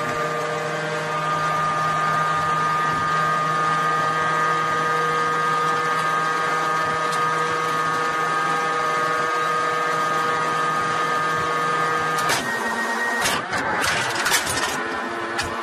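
Tank autoloader (T-72-type carousel loader) running as its electric drive turns the carousel to bring up an armour-piercing round: a steady whirr of several fixed tones. About twelve seconds in the note changes and a run of metallic clanks follows as the round is lifted into place.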